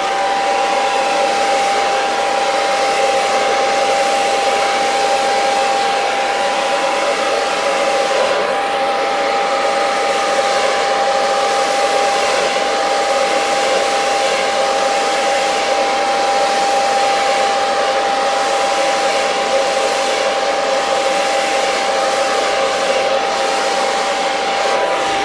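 Hair dryer running steadily, a rush of air over a constant motor whine, blowing thinned acrylic paint across a canvas. It is switched off abruptly at the end.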